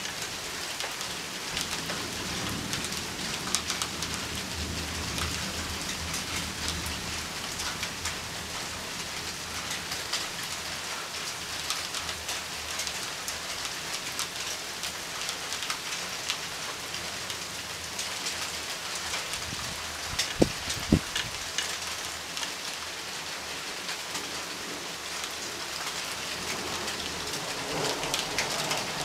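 Steady rain falling and pattering on surfaces, with low rolls of distant thunder about two to eight seconds in and again near the end. Two sharp knocks, a moment apart, a little past the middle are the loudest sounds.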